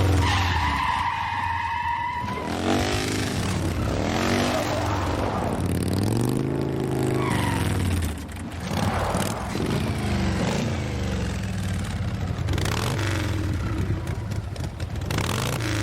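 Vehicle engines revving up and down several times, with a tyre squeal in the first couple of seconds: action-film sound effects of a vehicle chase.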